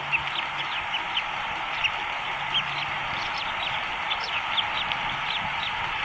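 Newly hatched bald eaglet peeping: short, high-pitched peeps, roughly three a second and uneven in spacing, over a steady hiss.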